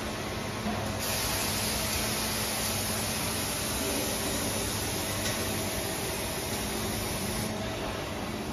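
Running PUR glue rolling production line: a steady hiss over a low, even hum. The hiss grows louder about a second in and eases near the end.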